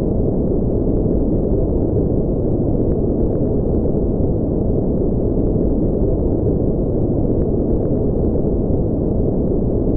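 Steady, deep rushing noise with little treble, unchanging throughout: a brown-noise spaceship engine ambience sound effect.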